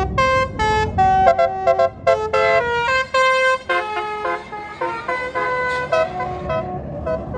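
Tour bus basuri (telolet) horn playing a quick tune of short notes, several pitches sounding together and changing every fraction of a second, over the low rumble of the bus engine. The tune thins out and gets quieter over the last couple of seconds.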